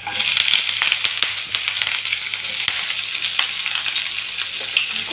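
Sliced bitter gourd hitting hot oil and browned onions in a non-stick pan: a sudden loud sizzle that then settles into steady frying, with a few light clicks.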